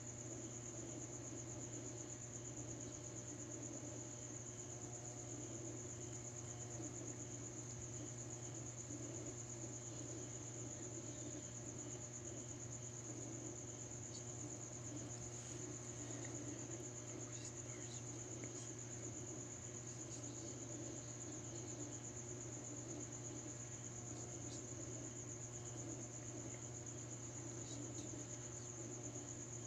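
Crickets trilling in one steady, unbroken high-pitched chorus, over a low steady hum.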